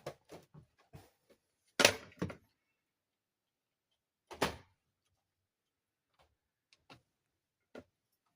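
Pieces of a toy princess castle dollhouse knocking and clicking as they are handled: a quick run of light clicks, two loud knocks about two seconds in, another knock a little later, then a few faint clicks.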